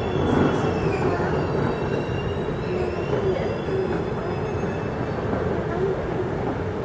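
Queensland Rail ICE electric train set running away over curved track and points, a steady rumble with faint high wheel squeal on the curve.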